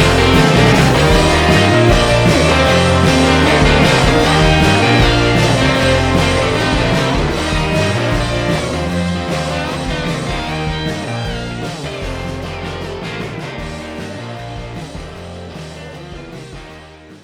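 Background rock music with guitar and a steady beat, gradually fading out toward the end.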